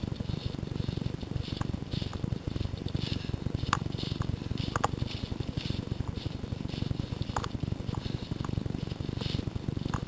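Footsteps crunching through dry leaf litter at a running pace, about two a second, over a steady low rumble of the camera being jostled. A few sharp clicks or snaps stand out, the loudest near the middle.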